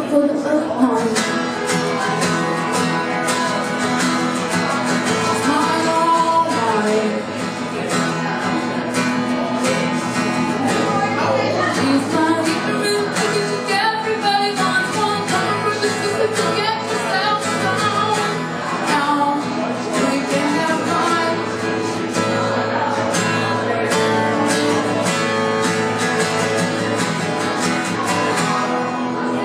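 A woman singing live while strumming an acoustic guitar.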